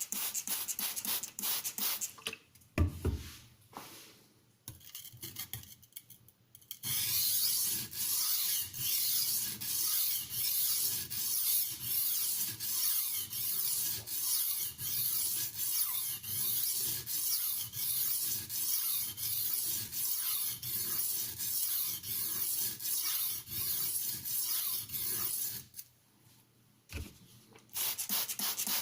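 Stainless steel slicer blade, a Tramontina Professional in 1.4110 steel, being stroked back and forth on a wet aluminium oxide whetstone: a rasping scrape. After a few irregular strokes it settles into an even rhythm of about three strokes every two seconds, with a short pause near the end.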